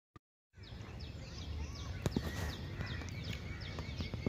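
Outdoor ambience cutting in about half a second in: birds chirping in short, repeated, falling notes several times a second over a low rumble, with a few sharp clicks.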